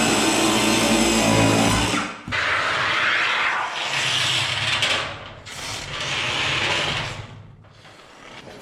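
DeWalt table saw and attached shop vac running, their motors cutting off about two seconds in. Uneven hissing and rustling follows for several seconds, then fades.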